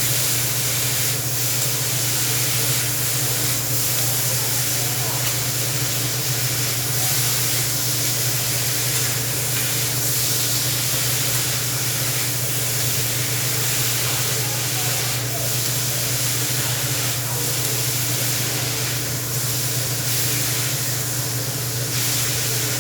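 Food sizzling on a hibachi-style grill, a steady hiss with no breaks, over a steady low hum.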